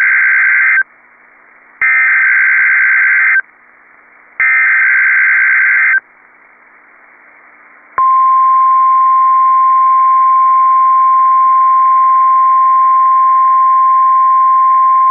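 Emergency Alert System SAME header: three identical bursts of screechy, warbling data tones, the first already sounding and the third ending about six seconds in. About two seconds later the steady 1050 Hz weather radio alert tone starts and holds, the signal that a warning message follows. The audio is cut off thin, as it is heard over a weather radio receiver.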